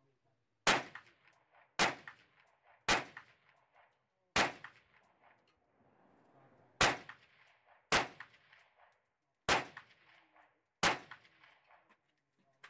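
Eight single shots from a UR-15 semi-automatic AR-15-pattern rifle with a three-chamber compensator, fired one at a time about a second or two apart. Each shot has a ringing echo.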